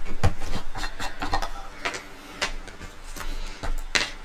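Small modelling supplies being handled and set down on a cutting mat: a run of light clicks and taps, with a sharper clack about four seconds in as a small plastic paint palette is put down.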